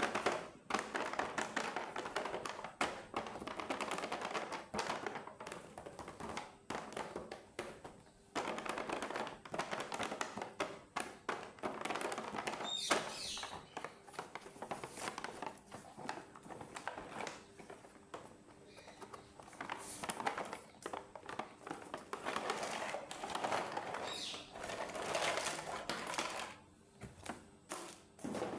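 Small plastic toys and their packaging being handled, with dense tapping, clicking and crinkling, pausing briefly a few times.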